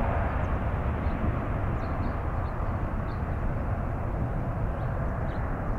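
A Boeing 777F's two GE90-115B turbofans at takeoff thrust as the freighter climbs out: a steady, deep jet roar that eases slightly as it pulls away.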